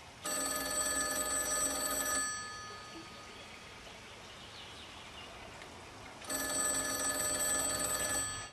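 Wall-mounted payphone ringing: two rings of about two seconds each, four seconds apart, the standard North American ring cadence.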